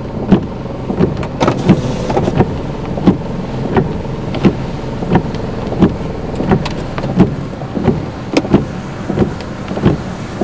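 Car windshield wipers running fast, with a thud at each end of their sweep repeating about every 0.7 seconds, over steady noise of wind-driven rain on the car.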